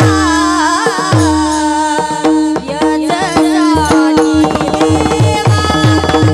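Devotional abhang singing: a woman's voice sings a long, winding melodic phrase over a steady drone, with a hand drum and small taal cymbals keeping the beat. The drum strokes thin out while the voice holds the phrase, then return in a steady rhythm about two-thirds of the way through.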